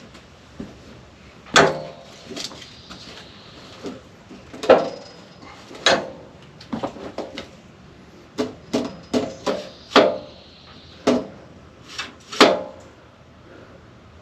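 Lumber being handled: well over a dozen irregular knocks and clunks, some with a short ring after them.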